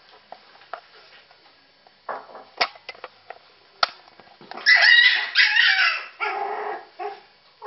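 Puppies squabbling at the food: after a few scattered clicks, a puppy yelps and squeals loudly for about two seconds past the middle, as if hurt by a littermate.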